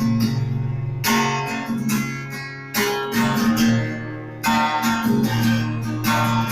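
Trembita Leoton L-01 acoustic guitar strummed: full chords struck about every one to two seconds, each left to ring out between strokes.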